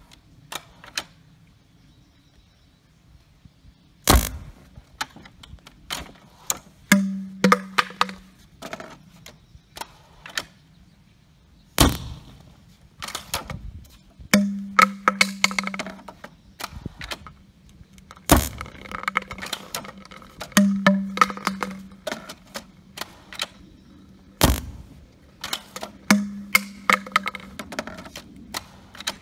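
Hands working a homemade PVC-pipe launcher on a wooden stand: a string of clicks and knocks of plastic pipe against wood and metal rail, with four loud clunks about six seconds apart and short stretches of a low hum.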